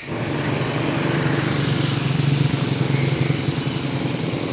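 Small boat engine running steadily with a low hum as a motorized banca passes on the river. Three short high chirps, each falling in pitch, come about a second apart in the second half.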